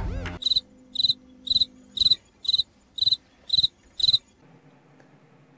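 A cricket chirping: eight evenly spaced chirps, about two a second, that stop about four seconds in. This is the stock comedy cricket effect for an awkward silence.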